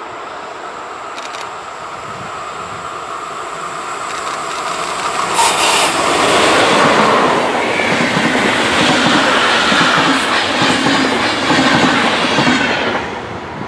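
An electric locomotive hauling a passenger train approaches, growing steadily louder, and passes close by about five and a half seconds in. The coaches' wheels then clatter over the rails until the last coach has passed, and the sound drops away near the end.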